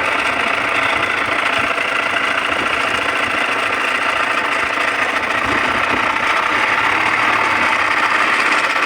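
Fishing boat's engine running steadily, loud and unchanging.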